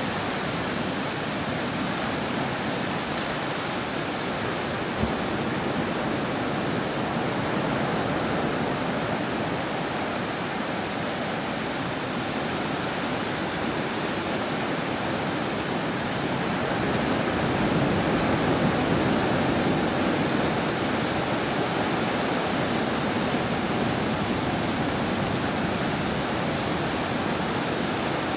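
Steady rushing of sea surf washing on the shore, swelling a little about two-thirds of the way through.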